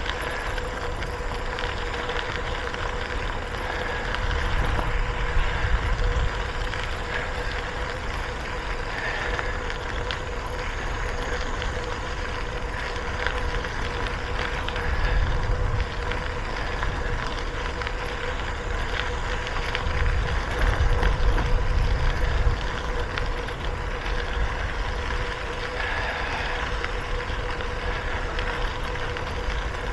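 Wind rushing over the microphone of a moving bicycle, mixed with tyre noise. The low rumble swells several times as gusts buffet the mic, over a steady hum.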